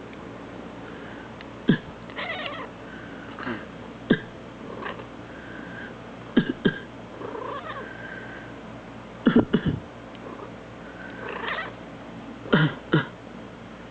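A person coughs in short sharp coughs, some in pairs, every two to three seconds, and a domestic cat answers between them with short high meows and chirps.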